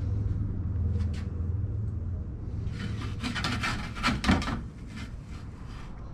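Scraping and rubbing at the charcoal pizza oven as its side handle is worked: a cluster of quick rasping strokes between about three and four and a half seconds in, over a steady low rumble.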